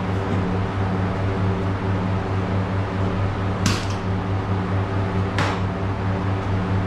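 Steady electric motor hum from a fan or extraction unit running, broken twice by short hissing bursts of air about a second and a half apart.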